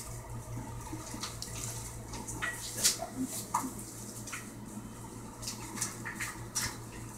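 Soft rustling and small handling clicks as ultrasound gel is wiped off the belly with a towel, over a steady low electrical hum.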